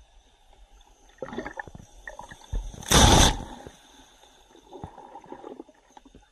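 Surf wave breaking over a wading freediver: a loud crash of whitewater about three seconds in, with water sloshing and splashing against the camera before and after it.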